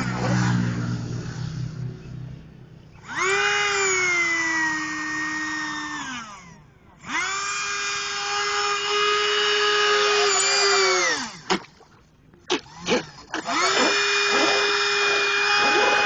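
Small electric motor of a radio-controlled model boat whining up to speed, holding a steady high pitch and winding down again, three runs in all. A few short throttle blips come between the second and third runs.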